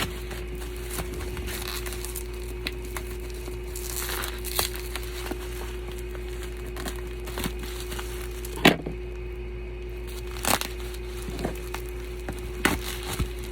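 Parcel packaging being handled and opened: plastic crinkling and tearing with scattered clicks, and two sharp cracks about two seconds apart, over a steady hum.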